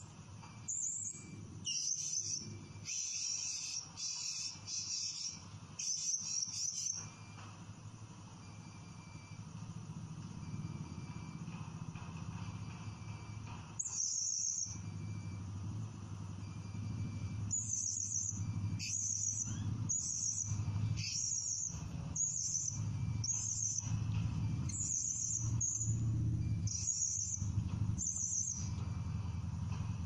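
Blue-crowned hanging parrot (srindit) giving sharp, shrill, very high-pitched calls: a quick cluster in the first several seconds, then after a pause a steady series of about one call a second through the second half. A low hum underneath grows louder from about eight seconds in.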